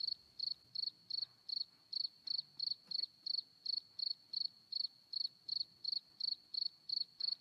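Cricket chirping in a steady, even rhythm of about three high chirps a second.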